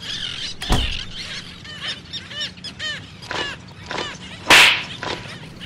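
A string of short honking bird calls, one every half second or so. A sharp knock comes just under a second in, and a loud, brief rushing burst about four and a half seconds in.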